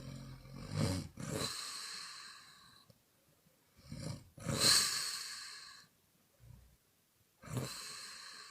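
A woman snoring: three snores a few seconds apart. Each is a short low snore followed by a long breathy blow out through the mouth. The loudest comes in the middle.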